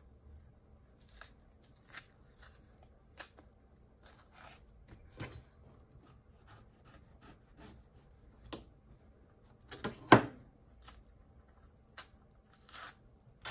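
Hands peeling the thick skin off a green burro banana: soft, scattered rustles, scrapes and ticks as strips of skin tear away, with one louder knock about ten seconds in.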